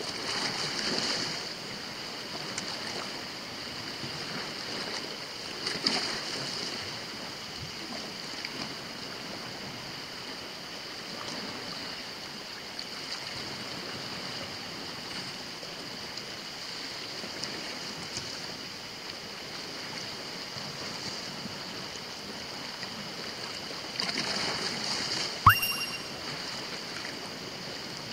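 Sea surf washing steadily on a rocky shore, swelling a few times. Near the end comes a single sharp clack with a brief ringing tone, as a fish takes the bait on one of the set surf rods.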